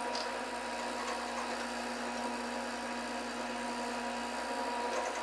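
Drill press motor running steadily while its twist bit bores a bolt hole down through a 3/4 inch MDF fence piece.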